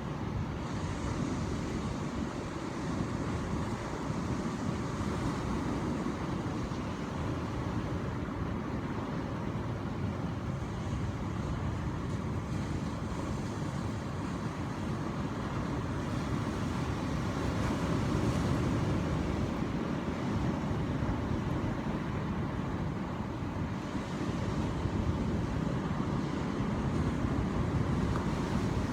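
Ocean waves washing in a steady rumbling surf, swelling a little about two-thirds of the way through and again near the end.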